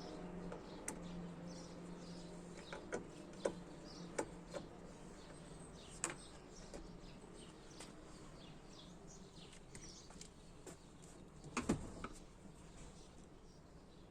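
Faint bird chirps with scattered clicks and knocks, the loudest knocks coming just before the end; a low hum in the first few seconds.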